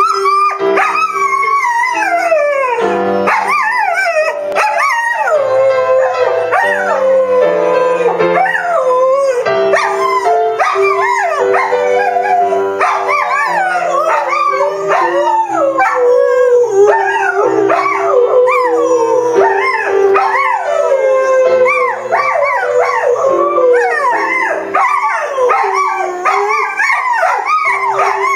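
Australian Shepherds howling along to music, long wavering howls that slide up and down in pitch, over music with steady held notes.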